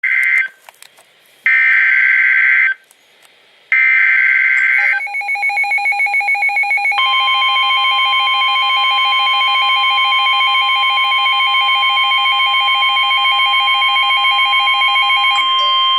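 Emergency Alert System tones for a severe thunderstorm warning. First come three short bursts of screeching digital header data, then a steady, loud electronic attention tone. A second pitch joins the tone about seven seconds in, and the tone cuts off just before the end.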